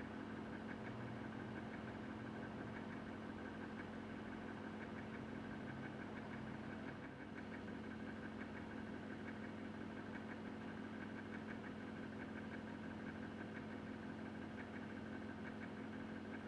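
Small electric motor of an airbrush compressor running steadily, a low even hum with a faint higher whine.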